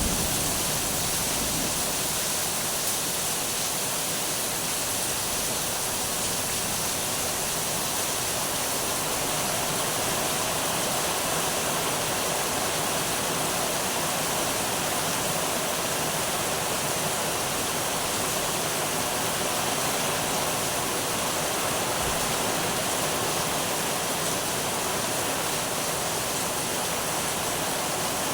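Heavy rain falling steadily, an even hiss with no thunder claps.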